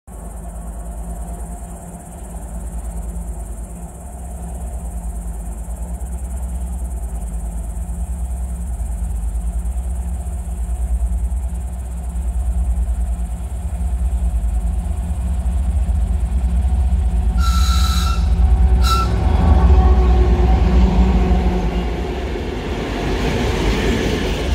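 Diesel locomotive approaching with a deep engine rumble that grows steadily louder, sounding two short horn blasts about a second apart, then drawing level with rising wheel and rail noise.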